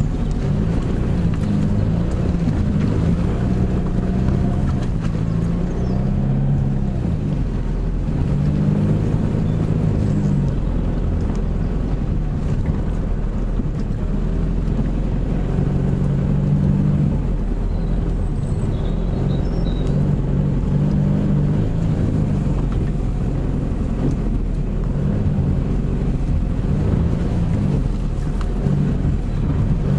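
Car driving slowly along a rutted dirt track, heard from inside the cabin: a steady low rumble with the engine's hum rising and falling in pitch every few seconds.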